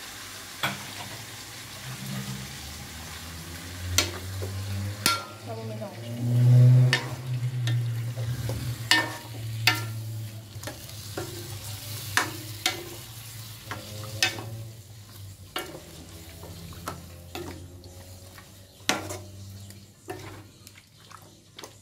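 A spatula stirs chicken wings in a sauce in a black iron wok, with repeated uneven knocks and scrapes against the pan over a sizzle of frying. A low rumble swells about seven seconds in and is the loudest part. The knocks thin out in the second half.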